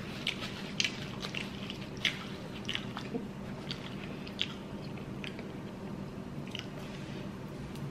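Close mouth sounds of someone eating saucy chicken wings: chewing with irregular wet smacks and clicks of the lips.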